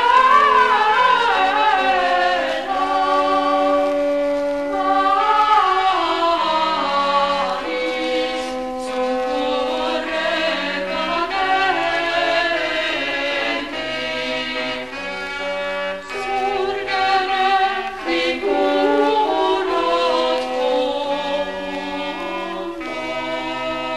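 Classical choral music: a choir singing held, sustained notes over a slowly stepping bass line.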